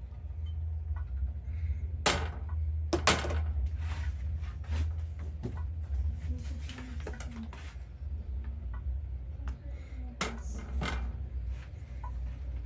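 Kitchen clatter: a few sharp knocks and clacks of things being set down and handled, two close together early and two more near the end, over a steady low hum.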